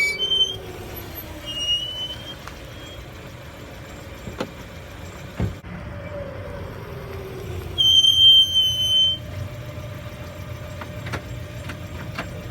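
Lada Vesta's brakes squealing as the car slows: short high squeaks about a second in, then a louder, steady high-pitched squeal lasting about a second and a half past the halfway point, over the low rumble of the moving car. The owner says the squeal does not affect braking.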